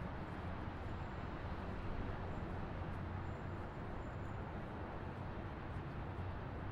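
Distant highway traffic: a steady, even rumble and hiss of tyres and engines blending together, with no single vehicle standing out.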